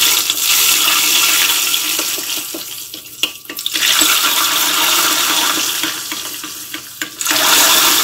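Hot oil poured from a frying pan into a bowl of vinegar dressing, sizzling and hissing loudly as it hits the liquid. The hiss fades about three seconds in, then flares up again at about four seconds and once more near the end as more oil goes in.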